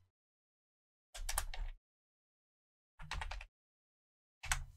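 Computer keyboard typing in three short bursts of key clicks.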